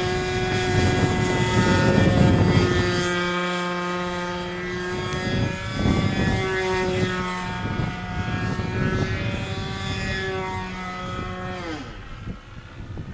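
Engine and propeller of a Pete N Poke radio-controlled model biplane in flight: a steady, high-pitched drone that grows loudest about two seconds in and wavers slightly in pitch. Near the end the pitch drops sharply and the sound fades.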